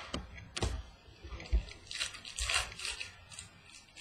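Trading cards handled on a wooden tabletop: a few light knocks and thumps as cards and plastic card holders are set down, then a dry rustle of card stock or wrapper about two seconds in.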